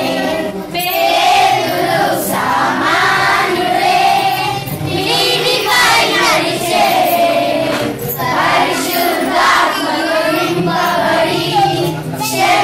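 A group of children singing a song together in unison, phrase after phrase, loud and steady.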